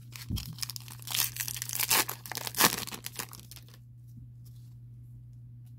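A foil trading card pack being torn open, its wrapper crackling and crinkling for about two and a half seconds and then stopping.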